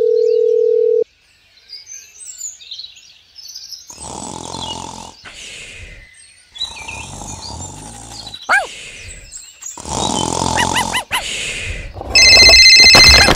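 A string of edited sound effects: a steady beep for about a second, then birds chirping, then several stretches of rough noise broken by short gaps, ending with a loud high ringing tone.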